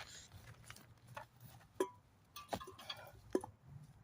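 A few faint, scattered taps and clinks of an aluminium can being handled and set down, spaced irregularly about half a second to a second apart.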